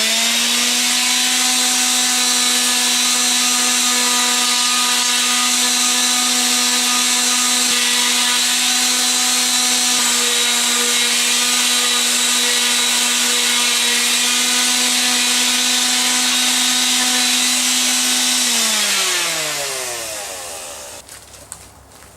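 Electric palm sander with 100-grit paper running at a steady pitch while sanding a red alder cane handle, with a steady hiss from the paper on the wood. About 18 seconds in it is switched off and its hum falls in pitch as it spins down.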